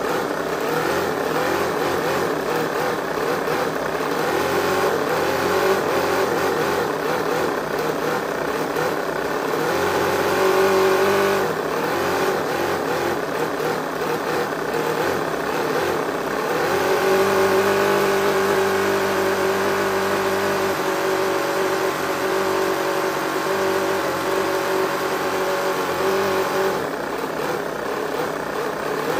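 Toyan FS-V800 four-stroke nitro V8 model engine running and being blipped by hand at the throttle linkage. Its pitch rises and falls several times, climbing highest about two-thirds of the way through before settling back.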